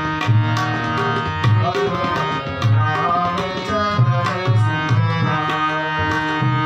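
Instrumental interlude of a Hindi devotional bhajan: tabla playing a steady rhythm with deep bass-drum strokes under a melodic accompaniment.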